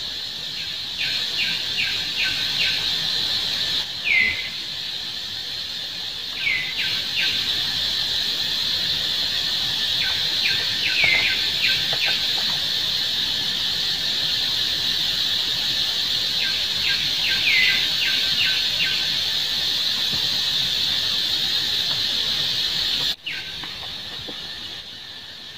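Steady high insect drone, typical of cicadas, with short falling chirps every few seconds, each a quick downward call among a few clicking ticks. The drone drops away suddenly near the end.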